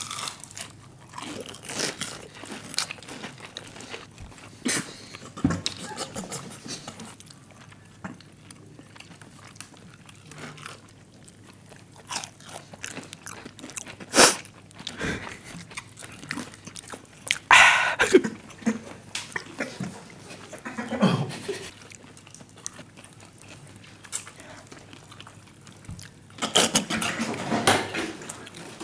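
Crisp fried chicken being bitten and chewed close to microphones: scattered crunches and mouth sounds, with a few short, louder vocal sounds from the eaters about halfway through and near the end.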